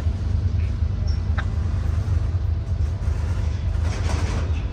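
An engine running steadily with a low rumble, a short click about a second and a half in and a brief hiss near the end.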